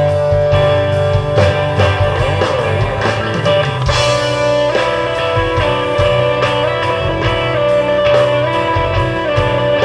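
Live rock band playing an instrumental passage: electric guitars holding sustained notes over bass and a steady drum beat.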